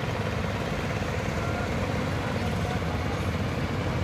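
Wooden fishing boat's engine running steadily with a fast, even beat.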